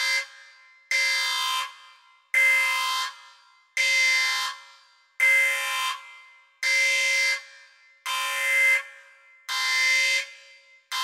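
A synthesized electronic tone pulsing about once every 1.4 seconds, eight times, at the same pitch each time. Each pulse starts sharply, holds for under a second and fades away.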